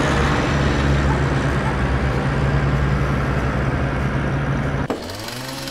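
Tractor engine sound running steadily at a low pitch; about five seconds in it cuts off suddenly and music begins.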